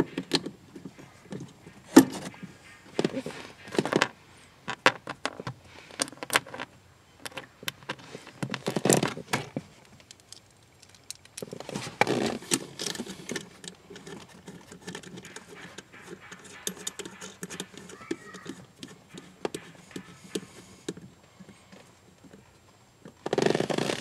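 Scattered metal clicks, knocks and light clinks as a Lokar accelerator pedal arm is pushed onto its splined pivot and a small fastener is handled.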